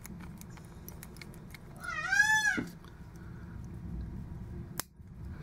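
A peacock calls once: a single loud wail, rising then falling in pitch, lasting under a second, about two seconds in. Near the end comes one sharp snip of scissors.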